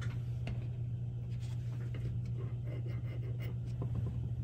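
Steady low electrical hum with faint small clicks and light rubbing from hands handling a small capacitor, shorting its leads to discharge it.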